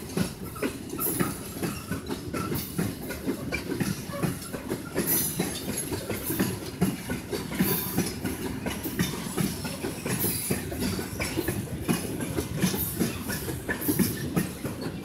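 A freight train of tank wagons rolling slowly along the track, its wheels knocking and clacking over the rail joints in a steady, irregular run of knocks and rattles.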